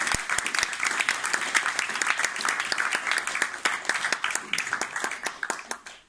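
Audience applauding: many people clapping at once, thinning out and dying away near the end.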